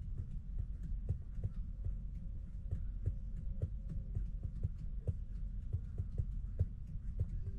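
Cab noise of a Scania P410 truck under way: a steady low drone of engine and road, with frequent irregular knocks and rattles.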